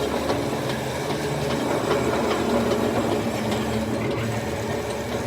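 Machinery running with a steady low hum.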